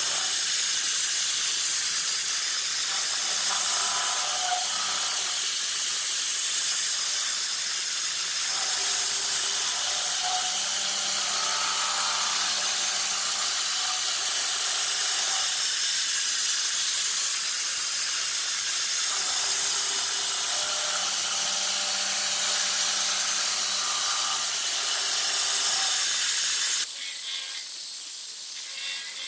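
UDM-2216 CNC machining center milling a large steel part: a steady loud spray hiss over the spindle and cutter tones, which come and go every few seconds as the tool moves through its path. Near the end the sound drops suddenly, leaving only a quieter hiss.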